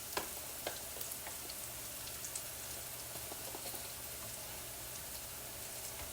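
Rice and peppers frying in oil in a skillet, a soft steady sizzle with a few faint ticks, as the rice browns.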